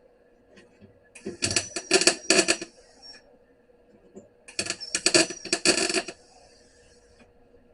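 Harbor Freight MIG welder laying short weld beads on sheet-steel floorpan: two bursts of crackling arc, each about two seconds, with a pause between.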